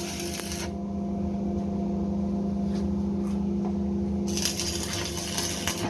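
Welding arc hissing and crackling in two bursts: about a second at the start and about a second and a half near the end, as a nut gets its final weld. A steady low hum runs under it throughout.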